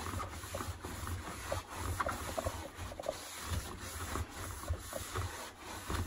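A damp paper towel rubbing and wiping the perforated stainless-steel drum of a front-loading washing machine, in irregular strokes with small ticks and knocks.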